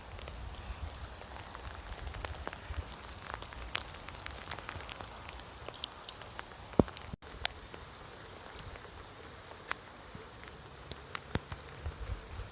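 Steady rain with many separate drops tapping sharply, over a low rumble that fades after about six seconds and returns near the end. The sound cuts out completely for an instant a little past seven seconds.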